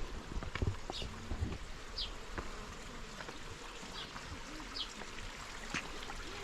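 Outdoor ambience: short, high-pitched chirps repeating roughly once a second over a faint steady hiss, with a few soft knocks.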